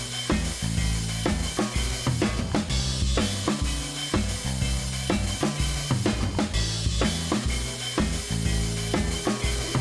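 Rock-style background music with a steady drum beat and a bass line.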